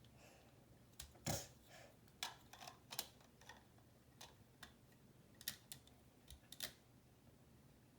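Lego bricks clicking and rattling as pieces are picked up and snapped together, in short irregular clicks, with a louder knock about a second in.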